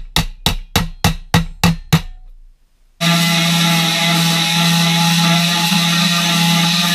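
A quick run of sharp knocks, about three a second, for the first two seconds. About three seconds in, an electric angle grinder with a cutting disc starts and runs steadily at a constant pitch, cutting into the sheet-steel cab floor.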